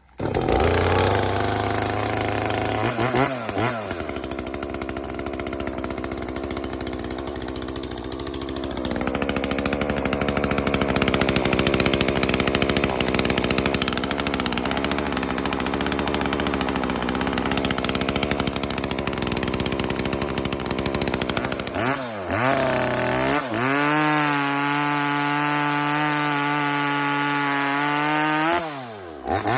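A 40 cc two-stroke 420ES chainsaw, an Echo CS-400 clone, running: a low steady note at the start, then it revs up about three seconds in and cuts wood under load for most of the time. Near the end it revs freely at a high steady pitch for about five seconds, then drops off.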